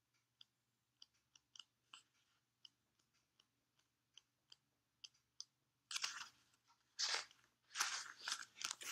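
Paper pages of a book being handled and turned, rustling in several loud bursts over the last three seconds, after a first half of only faint small clicks.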